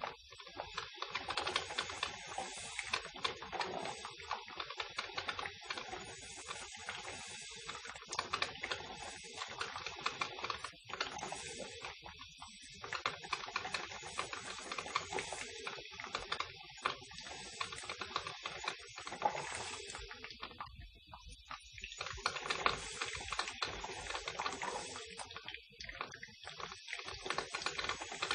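Electric coffee maker gurgling and sputtering as it brews: a dense, steady crackle of small pops and hiss, with brief lulls about twelve and twenty-one seconds in.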